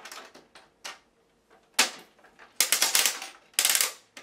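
Vendstar 3000 candy vending machine being worked by hand: clicking of its plastic dispensing mechanism, then a quick rattle of M&M's tumbling out into the delivery chute about two and a half seconds in, twice.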